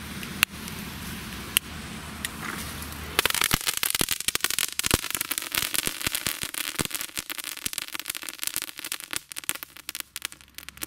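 Spider-Light crackling fireworks: a few isolated sharp snaps as the fuses spark, then about three seconds in a dense, fast crackle of many sharp snaps that keeps going.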